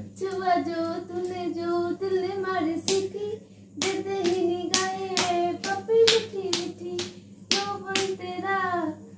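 A high voice singing a simple sing-song tune in short held notes, with a dozen or so sharp claps falling between and across the phrases.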